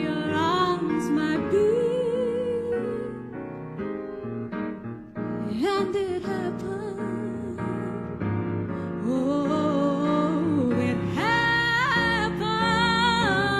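Music: a slow jazz standard with piano accompaniment under a melody line with vibrato.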